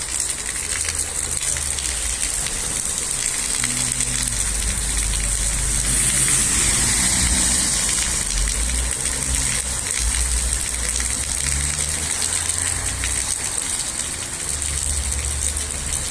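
Steady heavy rain falling, swelling briefly heavier about six seconds in, over an uneven low rumble.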